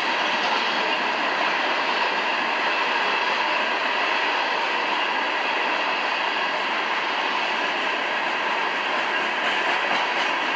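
CSX freight train rolling steadily past, its cars' wheels running on the rails with a continuous, unbroken rumble.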